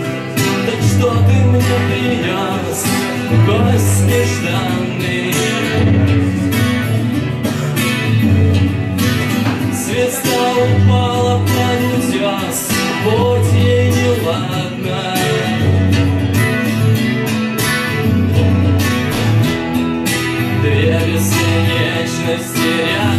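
Acoustic guitar strummed in a steady rhythm, with the bass notes changing every second or two, and a man singing along.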